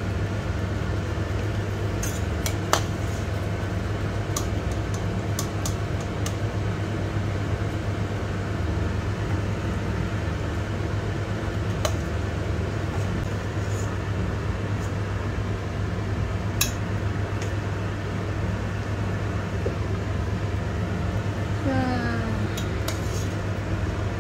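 A metal ladle gives a few sharp clinks against a steel cooking pot of tortelloni in water, over a steady low kitchen hum.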